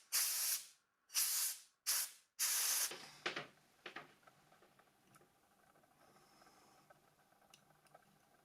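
Four short blasts of blown air hissing, one after another in the first three seconds, to clear dust off a phone part. Faint small clicks of handling follow.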